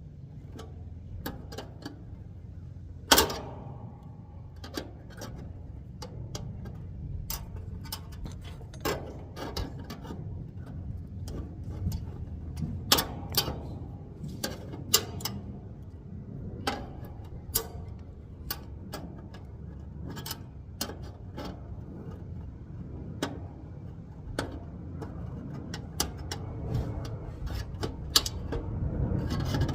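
Irregular clicks and taps of hand tools and parts handled on sheet metal while the condensing unit's wiring is worked on, one sharp knock about three seconds in, over a steady low rumble.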